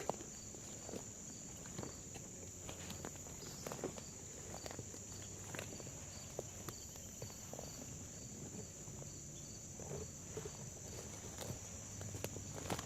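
A steady, high insect chorus, with a second insect pulsing about twice a second, and scattered soft crunches and knocks of footsteps in dry leaf litter.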